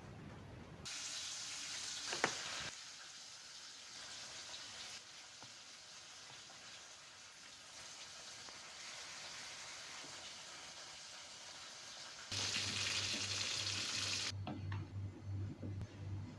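Risoles frying in hot oil: a steady sizzle that jumps louder twice, briefly about a second in and again near the end. A low, rhythmic throbbing comes in during the last couple of seconds.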